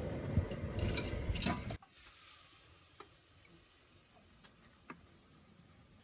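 Stirring and sizzling in a cooking pot, with sharp clicks of the spoon against the pot. It cuts off abruptly about two seconds in, leaving faint hiss and a few light ticks.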